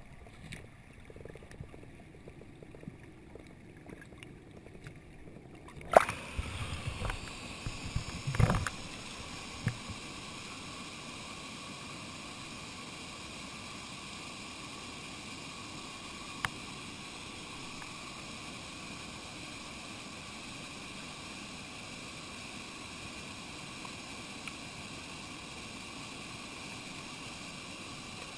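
Muffled underwater sound with faint clicks and knocks, then a sharp splash about six seconds in as the camera breaks the surface, a few seconds of splashing, and after that the steady rush of a flowing mountain stream.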